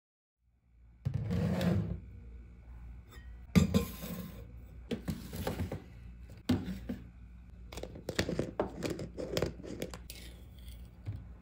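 Kitchen handling sounds: a string of knocks, clinks and rattles from a glass jar of instant coffee and its lid and a plastic ice cube tray handled on a countertop, starting about a second in.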